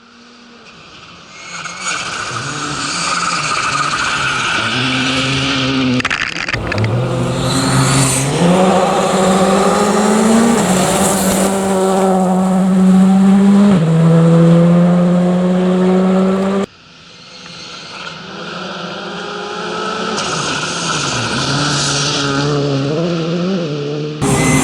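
Rally cars at full throttle on a special stage: engines revving hard, pitch climbing and dropping at gear changes as each car approaches and passes. Several separate passes are joined by abrupt cuts.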